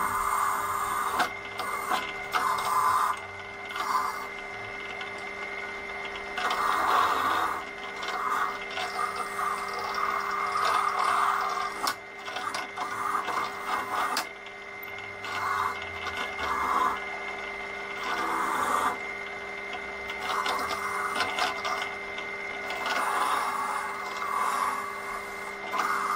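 Pillar drill running with a wire cup brush in its chuck, a steady motor hum under irregular spells of harsh rasping as a metal bunk frame bar is pressed against the spinning brush to clean it back to bare metal.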